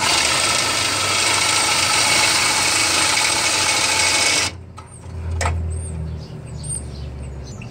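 Ryobi 18-volt cordless drill spinning a rusted carriage bolt against a hand-held hacksaw blade: a loud, steady metal-on-metal rasp for about four and a half seconds. Then it cuts off suddenly, leaving a much quieter low hum and a few clicks.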